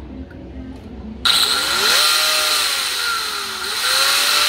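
Handheld angle grinder switched on about a second in: its motor whines up to speed with a loud rushing hiss. The pitch sags as the disc bears into the metal in the vise, then picks back up.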